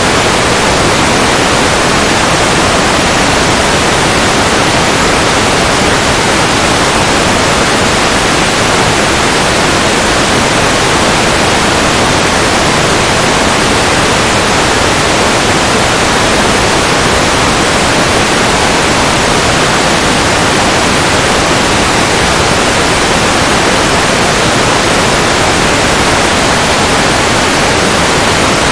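Steady loud static hiss on the audio channel of the analog FPV video receiver in a Fat Shark Dominator2 headset.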